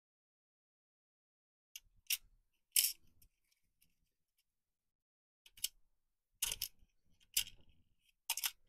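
Small zip-lock plastic bags and a clear plastic parts box rustling and clicking as a hand sorts through them: a string of short separate bursts that start about two seconds in and come closer together near the end.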